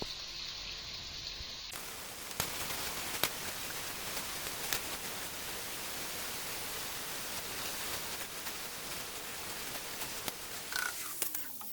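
Food sizzling in a pan: a steady hiss with scattered small pops.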